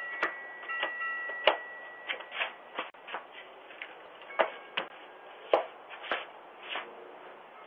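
Scattered short clicks and knocks, about fifteen at uneven intervals, with a faint steady tone in the first two seconds, all heard through a doorbell camera's thin, narrow-band microphone.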